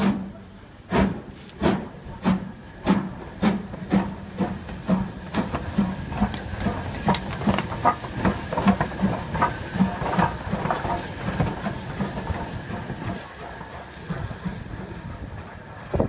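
BR Standard Class 4MT 2-6-4T tank steam locomotive starting a train, its exhaust chuffing over a steady hiss. The chuffs begin about a second in, slow and loud at roughly one every two-thirds of a second, quicken to about three a second as it gathers speed, then fade near the end as it draws away.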